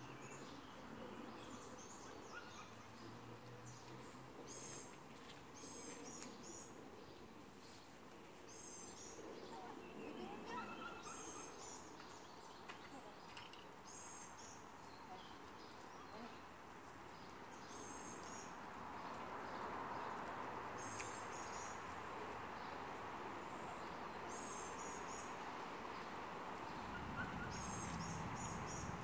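A songbird repeating a short, high chirping phrase every couple of seconds over faint outdoor ambience. A steady hiss swells about two-thirds of the way through, and a low rumble comes in near the end.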